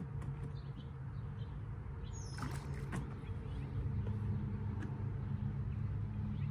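A motor running with a steady low hum that grows louder about four seconds in, with a short high chirp about two seconds in.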